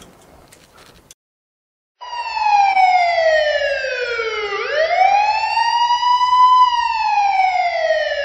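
Police-style siren sound effect, a slow wail that falls, swings back up, holds, then falls again. It cuts in abruptly about two seconds in, after a moment of dead silence.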